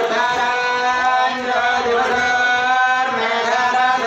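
Priests chanting Sanskrit mantras in a sung, drawn-out tone, holding long notes with a few brief bends in pitch.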